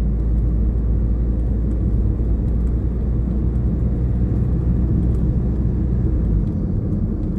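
Steady low road and engine rumble inside a moving car's cabin. The deepest part of the rumble shifts about six seconds in.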